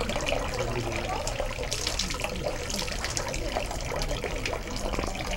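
Water running steadily from a temple fountain's metal dragon-head spout and splashing into the basin. A stream is poured from a metal ladle over a hand onto the stone, with many small drips and splashes throughout.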